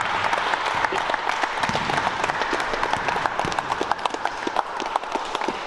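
Basketball players clapping their hands together: a dense, continuous run of claps that thins out toward the end.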